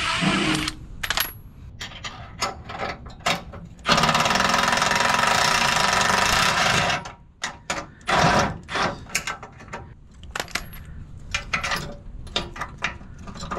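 Metal clinks and knocks of wrenches and bolts at a boat trailer's leaf-spring hanger. About four seconds in, a cordless impact wrench runs hammering for about three seconds while the old spring's mounting bolt is taken out. More clinks and clanks follow.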